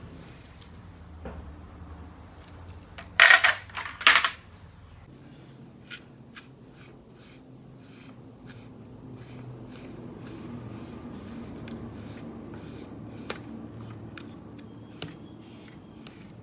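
Two short, loud hissing sprays from a spray bottle, then a long run of light clicks and taps from handling the fan parts over a low steady hum.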